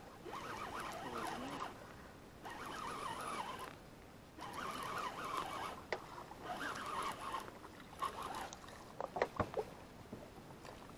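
Abu Garcia 6500 C3 baitcasting reel being cranked to bring in a hooked fish, its gears whirring in spurts of a second or so with short pauses between turns. A few sharp knocks about nine seconds in.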